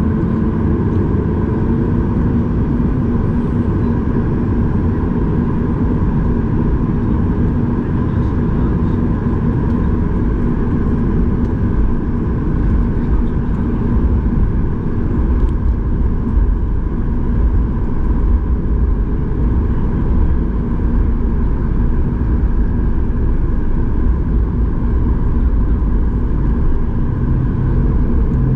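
Cabin noise of a Boeing 737 MAX 8 taxiing, heard from a window seat beside its CFM LEAP-1B engine at low taxi power: a steady hum with a few steady whining tones over a low rumble.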